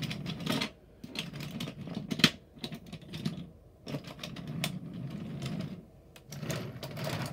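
Toy trains pushed by hand along wooden railway track: the wheels rumble as they roll, with many sharp clicks and clacks as the wagons and track pieces knock together, one louder click about two seconds in.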